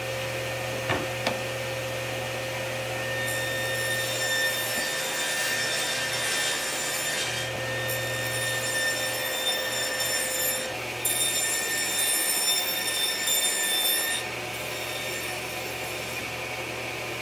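Table saw running with a single blade, cutting a rabbet into solid ash panels in a series of passes. The motor hums steadily while the blade's higher-pitched cutting sound comes and goes, about four passes starting a few seconds in.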